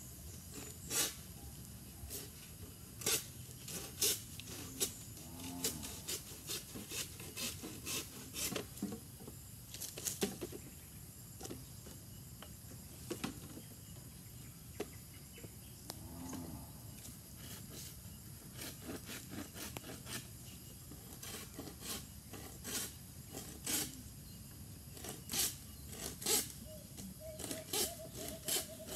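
Open wood fire burning bamboo, crackling with irregular sharp snaps and pops. A few faint low animal calls, like distant cattle lowing, come now and then.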